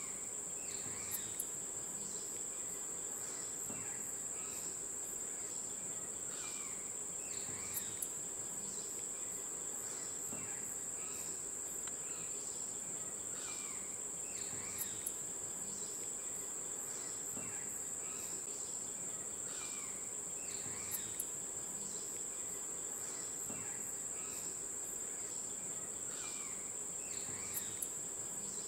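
A steady, high-pitched drone of insects, with many short, falling bird chirps over it. Pairs of short, sharp ticks come about every six or seven seconds.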